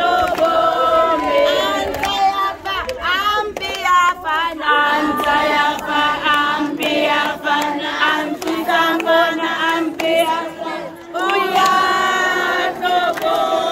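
A crowd of children and women singing a song together, clapping their hands along with it.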